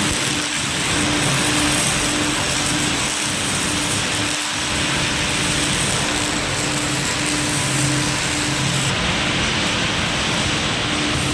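Electric arc welding: a steady crackling hiss from the arc, with a low hum underneath.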